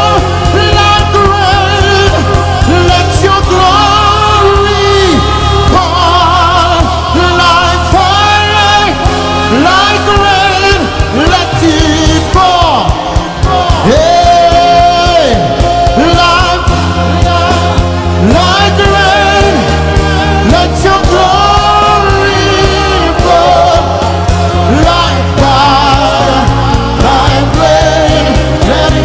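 Live gospel worship music: a singer holding long, wavering notes over instrumental backing with a steady bass.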